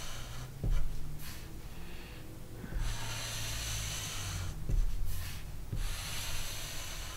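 Permanent marker drawn across paper in several long straight strokes, each a scratchy rub with short pauses between. A few soft low thumps come in between, the strongest about a second in.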